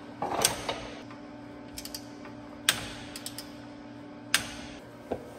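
Scattered sharp metallic clicks and clinks from a long ratchet and socket being worked on the front hub nut, snugging it up before it is torqued.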